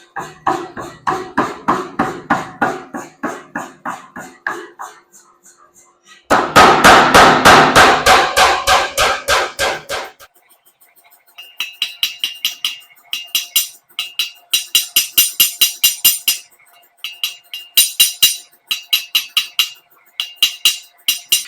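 Hot Damascus steel being hammered on an anvil during knife forging: a run of rhythmic blows, a louder run of fast, heavy blows in the middle, then short bursts of lighter strikes, each with a high, bright anvil ring.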